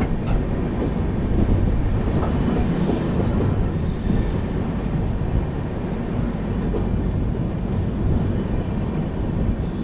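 Shatabdi Express train under way: a steady rumble of wheels running on the rails, with a brief high hiss about four seconds in.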